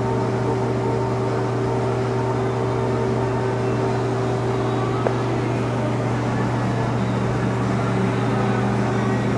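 Spray-painting equipment running: a steady mechanical drone over an even hiss of air from a paint spray gun fed by an air hose. One short click about five seconds in.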